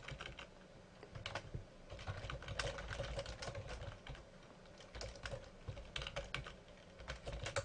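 Typing on a computer keyboard: irregular runs of quick keystrokes, with a short pause about halfway through.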